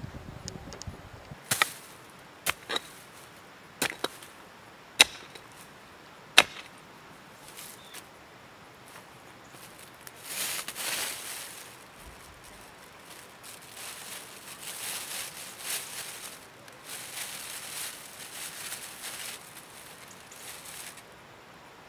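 Six sharp clicks or knocks in the first seven seconds, the last two the loudest, then long stretches of rustling from about ten seconds in as soil, roots and a plastic bag are handled by hand while planting a young hazel shoot.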